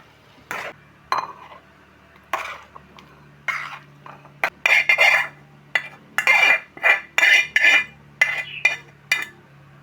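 Metal spatula scraping and clanking against a frying pan in a string of short strokes, a few spaced out at first, then quicker and louder from about halfway through, over a faint steady hum.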